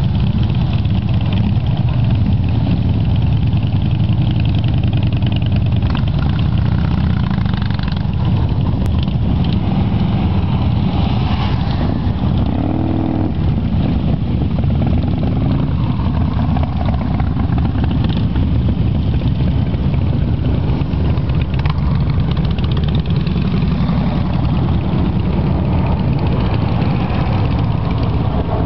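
A large group of motorcycles running together, making a steady, dense low engine rumble with no break.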